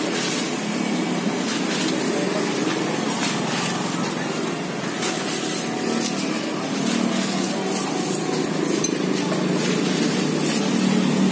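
Street ambience: steady traffic noise from passing vehicles, with short clicks and rustles close by.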